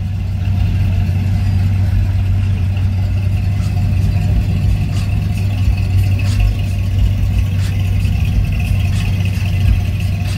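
Chevrolet Impala lowrider's engine running at a slow roll, a loud, steady low rumble as the car creeps past.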